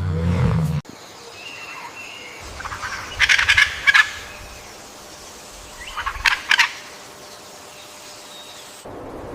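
Two bursts of rapid, rattling calls from a fowl-like bird, about three seconds apart. A loud, low sound from the previous clip cuts off abruptly about a second in.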